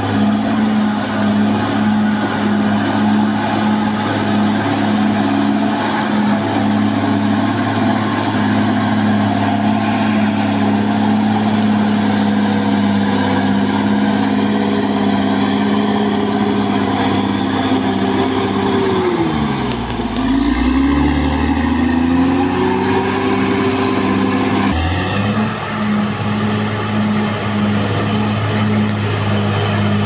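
Caterpillar D6R XL bulldozer's diesel engine running steadily as the machine pushes dirt. About two-thirds of the way through, the engine note drops sharply, climbs back over a few seconds, then jumps back to its steady pitch.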